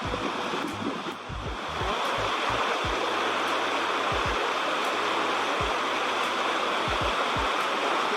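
Steady rush of running creek water, with occasional short low thumps.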